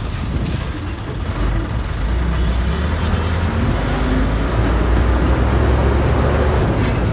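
Street traffic noise: a steady low engine rumble from road vehicles, growing louder about two seconds in.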